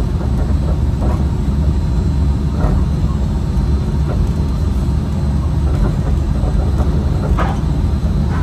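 Steady low rumble of the Disneyland Monorail train running along its beam, heard from inside the front nose cab.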